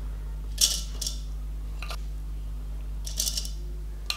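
Soaked mustard seeds spooned from a bowl into a plastic mixer-grinder jar: two short scrapes, one about half a second in and one about three seconds in, with a light tap near two seconds.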